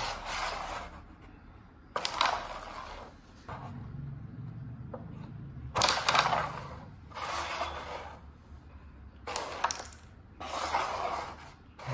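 Carrom striker flicked across a powdered wooden carrom board, each shot a sharp clack against the coins followed by a short sliding scrape of pieces over the board. Four shots, a few seconds apart.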